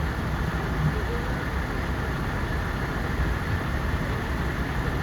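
Fire engines idling: a steady low engine rumble.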